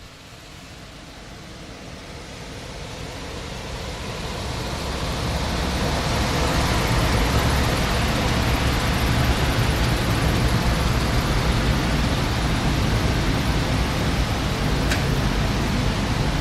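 Trane portable HVAC unit running in heat mode: air rushing from the blower over a low motor hum. It grows louder over the first several seconds, then holds steady.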